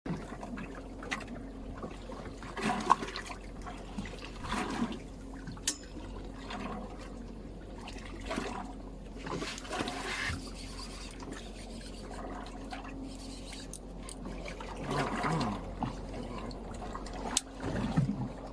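Water sloshing and trickling in uneven swells, over a steady low hum, with a couple of sharp clicks.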